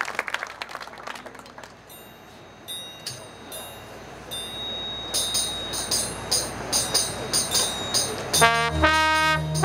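Marching band starting a piece. Scattered clapping dies away, light high percussion ticks keep a steady beat, and about eight seconds in the brass section comes in loud with held chords.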